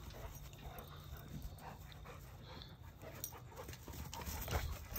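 Dogs at rough play, panting, with faint scattered scuffing sounds.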